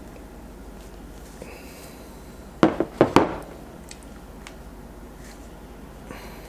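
Three sharp clacks in quick succession about two and a half seconds in, from pliers and a steel hook being handled while a knot in heavy monofilament line is pulled tight.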